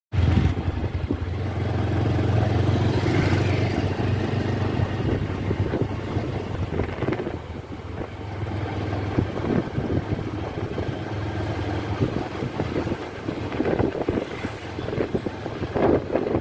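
Steady wind rumble on the microphone mixed with outdoor traffic noise. A small pickup truck drives past close by near the end.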